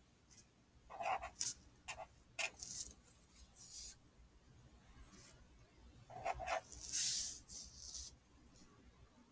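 Marker pen writing numbers on notebook paper: short squeaks and scratches of the tip, a few in the first three seconds and another run about six to eight seconds in.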